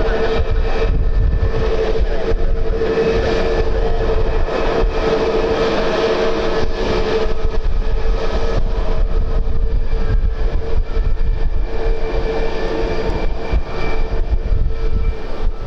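Aircraft engines running steadily with a sustained hum, over heavy wind rumble on the microphone.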